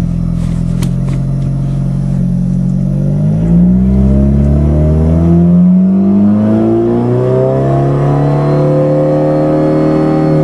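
1992 Eagle Talon's four-cylinder engine running shortly after a cold start with no exhaust back pressure. Its speed is steady at first, rises about three seconds in, wavers, climbs slowly again and drops near the end.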